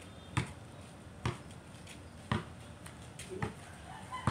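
Basketball bouncing on a concrete court: five thuds about a second apart.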